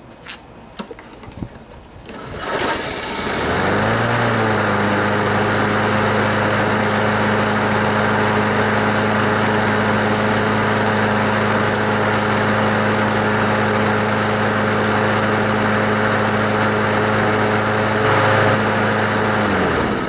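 Briggs & Stratton single-cylinder engine on a Craftsman push lawn mower being pull-started. It catches about two seconds in and runs up to speed, then runs steadily. Near the end it winds down in pitch and stops.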